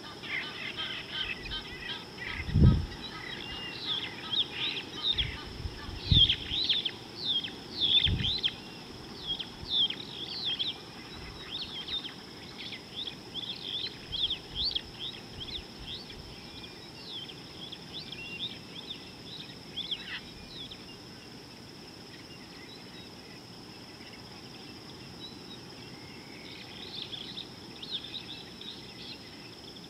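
Wild birds chirping with many quick, short calls, busy through the first half, thinning out, and picking up again near the end, over a steady high-pitched whine. Three dull low thumps stand out in the first ten seconds.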